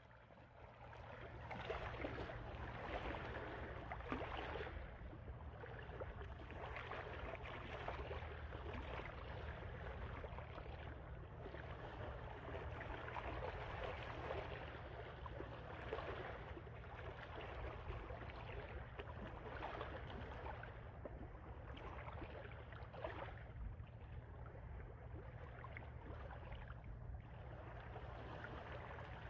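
Shallow seawater sloshing and splashing softly and unevenly as someone wades and gropes with his hands through water and mud among mangrove roots.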